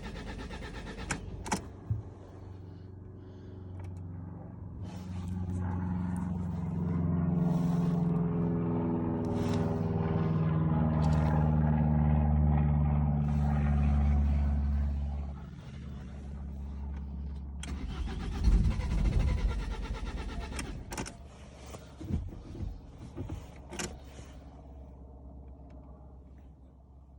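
Ford S-Max 1.8 TDCi diesel engine turned over on the starter motor for about ten seconds without catching, then cut off: a no-start. A few clicks and knocks follow near the end.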